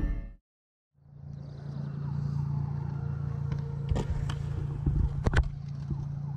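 Music fades out, and after about a second of silence a steady low mechanical hum comes in, with a few sharp clicks over it.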